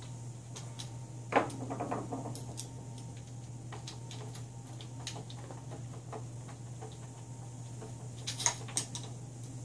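Light clicks and knocks of small screws, washers and nuts being fitted as a plastic bracket is fastened to a wooden board, with a louder clatter about a second and a half in and a quick cluster of clicks near the end. A steady low hum runs underneath.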